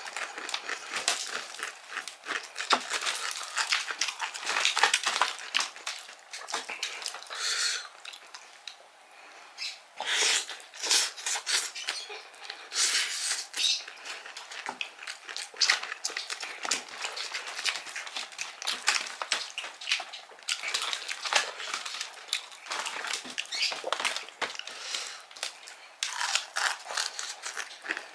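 Close-up chewing and crunching of crispy ayam kremes fried chicken and its fried crumb topping: an irregular run of crackly bites and chews, easing off briefly about a third of the way in.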